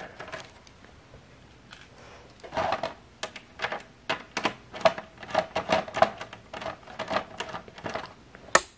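Screwdriver turning out small screws from a plastic lamp housing, giving a run of quick, uneven clicks about three a second, with one sharper click near the end.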